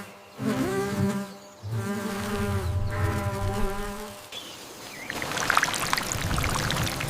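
A buzzing, insect-like drone with a low pitch that wavers, breaking off about four seconds in, followed from about five seconds in by a crackling, rustling noise.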